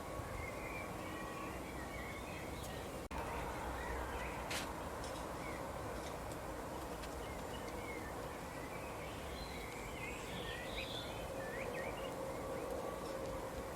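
Small songbirds chirping in scattered short calls, thickest a little past the middle, over a steady background of outdoor noise with a low hum. There is a brief dropout in the sound about three seconds in.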